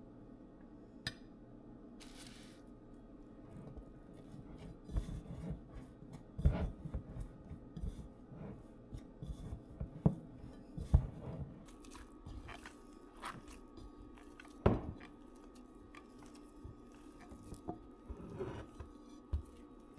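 Irregular hands-on kitchen work noises: soft thumps and sharp taps and clicks, busiest from about five to twelve seconds in, with one louder knock near fifteen seconds, over a faint steady hum.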